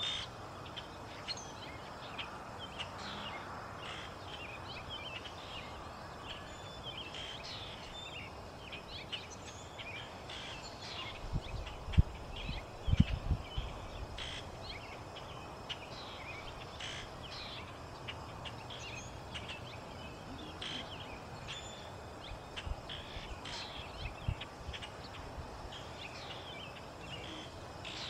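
Small birds chirping, short high calls scattered again and again over a steady outdoor hiss. A cluster of low thumps comes about eleven to fourteen seconds in and is the loudest sound.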